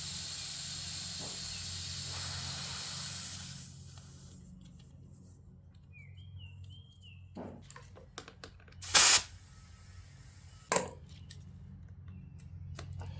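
Compressed air hissing steadily at a tractor tire's inner-tube valve stem, cutting off after about three and a half seconds, then two short loud bursts of air a couple of seconds apart.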